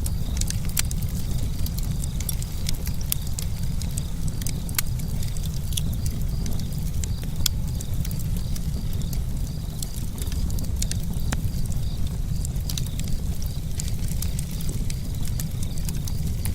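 Campfire burning, wood crackling with frequent irregular sharp pops over a steady low rumble.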